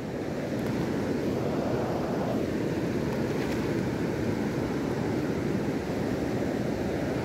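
Steady rush of fast-flowing river water, an even noise without breaks.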